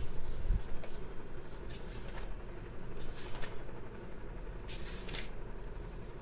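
Pages of a thick paperback textbook being turned by hand: paper rustling and sliding in several short, irregular swishes, with a couple of soft low thumps near the start.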